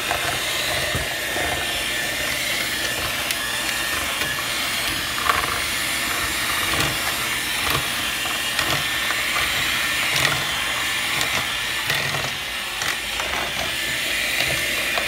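Electric hand mixer running steadily, its beaters churning crumbly cookie dough in a plastic bowl, with short knocks as the beaters hit the bowl, one sharper about five seconds in.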